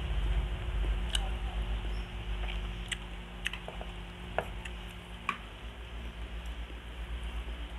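Close-miked eating by hand: chewing and wet mouth clicks, with a few sharp smacks scattered through, as fried egg and rice are picked up with the fingers and eaten.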